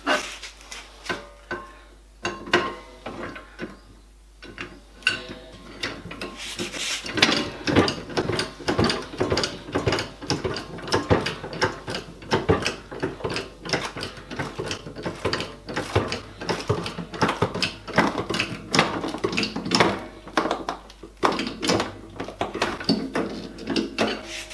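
Rapid, irregular clicking and knocking of workshop handling during a plywood glue-up, with a ratcheting, mechanical character; sparse at first, then busy from a few seconds in.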